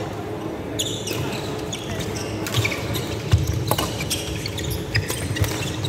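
Badminton rally: sharp racket hits on the shuttlecock and players' shoes squeaking and thudding on the wooden court floor, the loudest hit a little past the middle.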